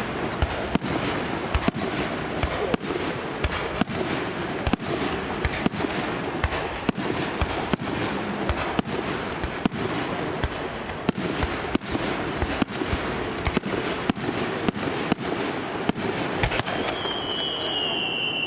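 Fireworks going off: sharp bangs about twice a second over a continuous crackling rumble. Near the end a high whistle begins and falls slowly in pitch.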